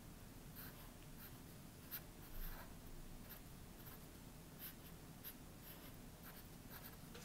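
Black Sharpie felt-tip marker drawing on paper: faint, short scratchy strokes at an irregular pace, a little louder about two seconds in.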